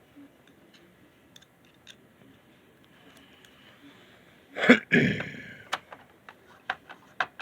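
A screwdriver being handled and worked on a dashboard trim module: faint clicks, a loud clatter about halfway through, then a run of sharp ticking clicks as a Phillips screw is worked loose.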